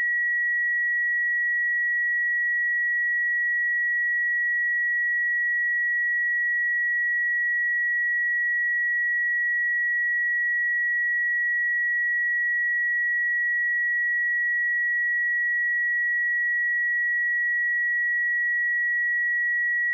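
A steady 1921 Hz sine-wave test tone, one pure high-pitched note held at an unchanging level.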